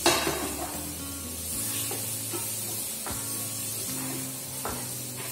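Mixed vegetables sizzling in a steel frying pan while a wooden spatula stirs them, with a few short scrapes or knocks of the spatula against the pan. Background music with held notes plays underneath.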